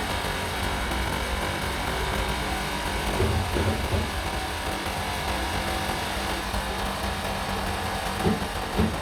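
Steady workshop machine noise with a low hum, with a few brief knocks about three and a half seconds in and twice near the end.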